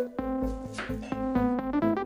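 Background electronic music: quick synthesizer keyboard notes over a bass line that comes in just after the start.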